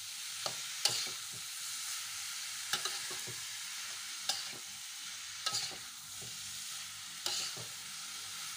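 Bitter melon, egg and anchovies sizzling in a hot wok while a metal spatula stirs them. The spatula scrapes and clacks against the pan at uneven intervals, about eight times.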